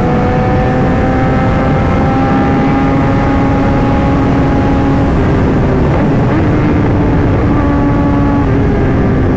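Kawasaki ZX-10R inline-four engine running at a steady cruise under heavy wind noise. The engine note rises slowly, then changes and dips briefly about six seconds in before settling again.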